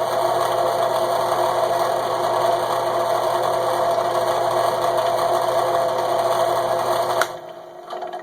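Shopsmith jigsaw running steadily while it cuts, throwing fine sawdust. It is switched off about seven seconds in and winds down.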